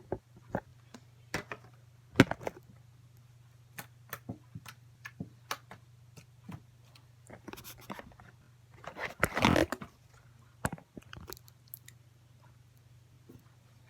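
Slime being squished and poked by hand, giving scattered sticky clicks and pops, with a denser run of crackling about nine seconds in.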